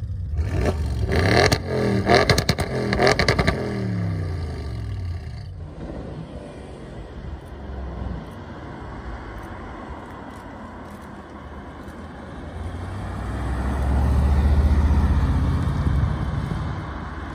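Audi RS6 Avant (C7) twin-turbo V8 revved several times while standing, pitch rising and falling, with sharp exhaust crackles over the revs. After a cut about five seconds in, a C7 RS6 Avant's V8 is heard approaching, loudest as it passes near the end, then fading.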